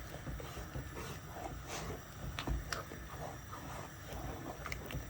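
A spoon stirring thick oat swallow in a pot, with scattered sharp knocks against the pot.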